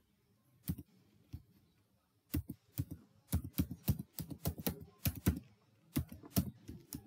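Typing on a computer keyboard: two lone keystrokes at first, then a quick, uneven run of keystrokes from about two seconds in.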